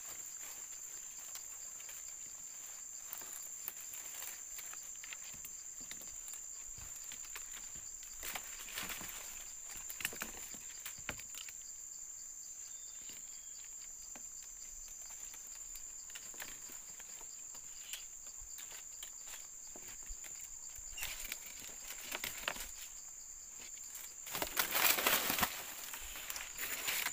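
Steady high-pitched insect drone from crickets or cicadas, with scattered light rustling and a louder burst of rustling near the end.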